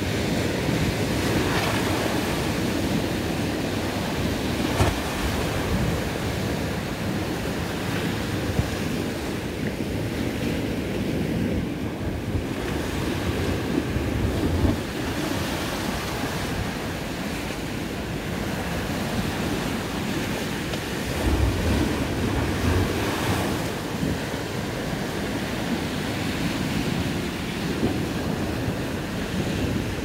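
Irish Sea waves breaking and washing up a concrete slipway in a steady surging wash, with wind rumbling on the microphone.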